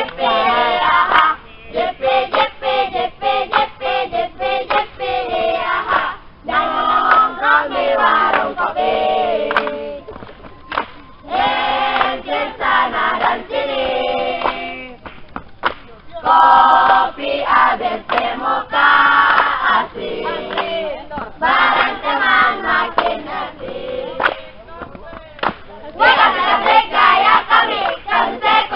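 A group of young people singing together in chorus, with hand claps through the song.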